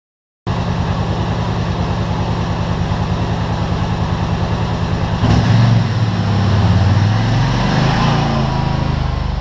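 ATV engine running with a steady low pulse, growing louder and rougher about five seconds in as the ATV drives close by, pushing snow with its front plow blade.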